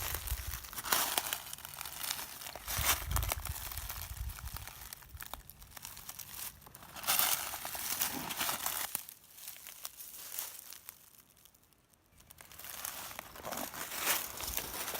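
Footsteps crunching through dry fallen leaves, each step a crackly rustle about a second or so apart. The steps pause briefly about two-thirds of the way through, then carry on.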